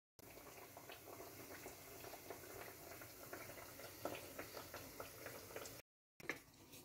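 Faint crackling and bubbling of hot fat and juices around bacon-wrapped meat rolls in a baking dish just out of the oven.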